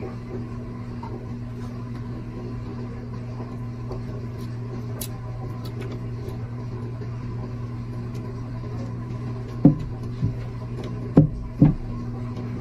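A steady low mechanical hum. Four dull thumps stand out near the end, in two pairs about half a second apart.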